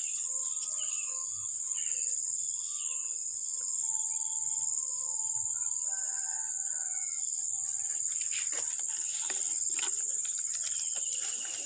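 A steady high-pitched insect drone, with several birds chirping and whistling over it for the first two-thirds. A few soft clicks or rustles follow later on.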